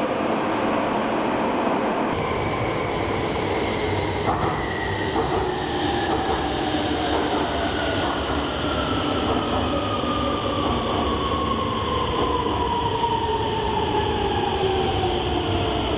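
Electric train of the Rotterdam RET network running past, with a steady rumble of wheels on rail. Its traction-motor whine falls slowly in pitch across the whole stretch as the train slows.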